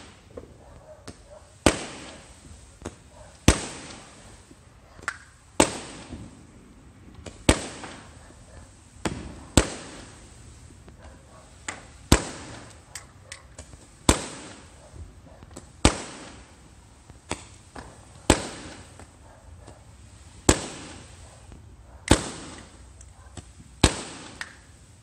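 Aerial fireworks bursting overhead: a loud bang about every two seconds, each trailing off briefly, with smaller pops in between.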